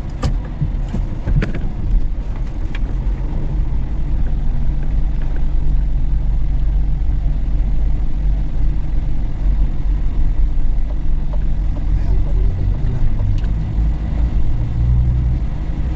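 Steady low rumble of a delivery vehicle heard from inside its cab, with a few sharp clicks in the first three seconds.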